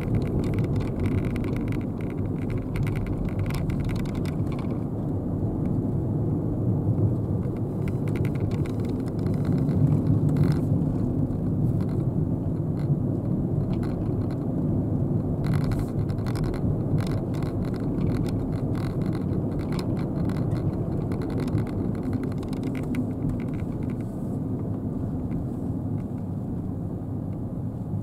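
A Nissan Dayz turbo kei car driving on a winding road, heard from inside the cabin as a steady low rumble of engine and tyre noise. The rumble swells slightly about ten seconds in.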